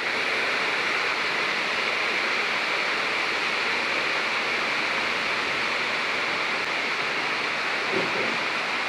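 Steady, even rushing hiss with no distinct events, and a brief faint low sound about eight seconds in.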